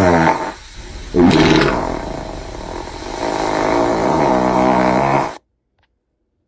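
Farting sound effect: a short fart, then a long drawn-out raspy fart from about a second in. It grows more tonal toward its end and cuts off suddenly about five seconds in.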